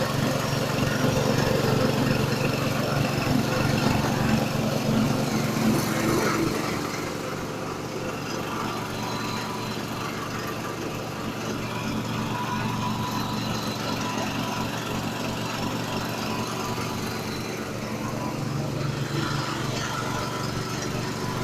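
Engine-driven multifunction grass chopper machine running steadily while grinding rice husks, with a fast rhythmic low throb; it gets noticeably quieter about six seconds in and runs on evenly.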